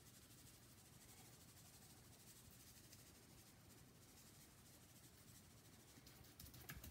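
Near silence: faint room hiss, with a few soft clicks near the end.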